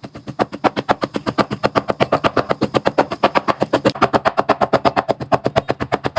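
A cleaver rapidly mincing meat on a chopping board: fast, even knocks at about ten strikes a second.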